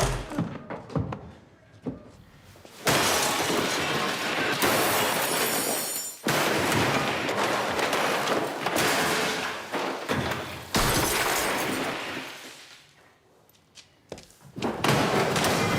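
Glass shattering: a few scattered knocks, then three long crashes of breaking glass, the last trailing off.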